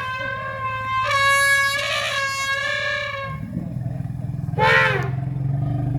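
Elephants trumpeting: long, high, brassy calls that overlap and are held for a few seconds, then a low pulsing rumble with one short, arched trumpet blast near the middle.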